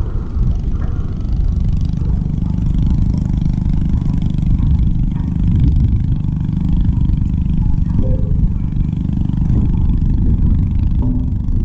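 Boat engine running steadily: a continuous low rumble.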